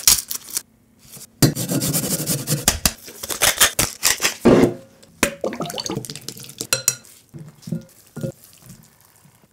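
Close-miked kitchen prep sounds: a wooden pepper mill grinding with a dense, rapid rasping for a few seconds. Then sparser clicks, taps and soft rubbing as a spiral-cut cucumber is pressed into tuna in a glass bowl, fading toward the end.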